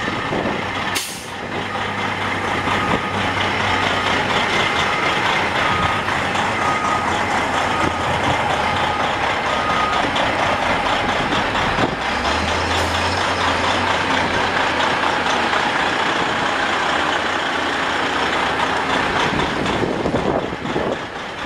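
Detroit Diesel Series 60 12.7-litre straight-six turbo diesel of a 2001 Freightliner Century semi tractor running steadily. A reversing alarm beeps about once a second through the first half, and there is a sharp click about a second in.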